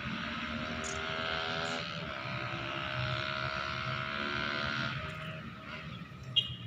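A motor vehicle engine running at a steady pitch for about five seconds, then fading out, with a sharp click near the end.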